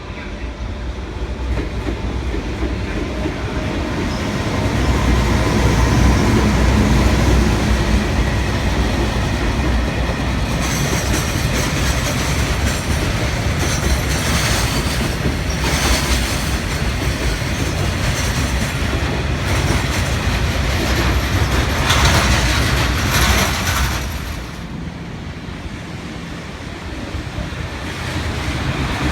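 Freight train rolling past close by: a heavy rumble of the wagons with clattering over the rail joints. About ten seconds in, patches of high-pitched wheel noise come and go for about a dozen seconds.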